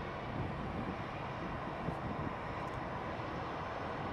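Twin-engine jet noise from an Airbus A320-family airliner as it rolls along the runway: a steady, even rush without rises or breaks.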